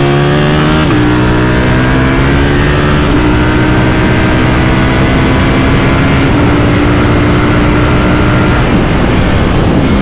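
KTM Duke 790 parallel-twin with an aftermarket Austin Racing exhaust, pulling hard under acceleration. The pitch climbs and steps down at each upshift, about a second, three seconds and six seconds in, and the revs fall away near the end.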